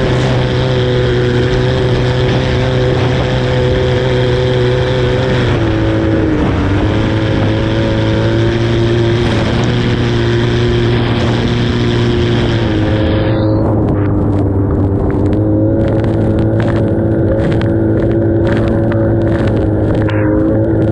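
A Formula 2500 racing hydroplane's engine running hard at speed, heard on board, with its pitch dipping briefly about six seconds in and again about two-thirds through. A rush of wind and water spray sits over it, dropping away about two-thirds through and leaving short crackles.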